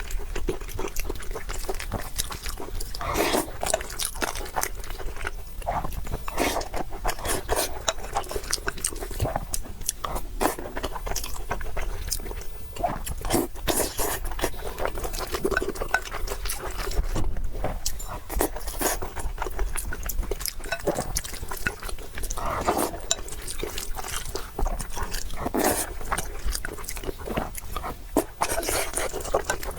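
Close-miked eating: steady chewing and crunching, a dense irregular run of small mouth clicks.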